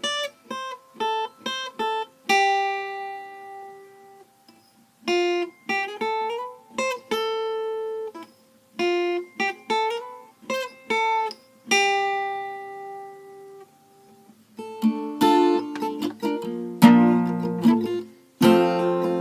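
Acoustic guitar intro: single notes plucked one at a time, each left ringing and fading, with short gaps between phrases. About three quarters of the way through it thickens into fuller strummed chords.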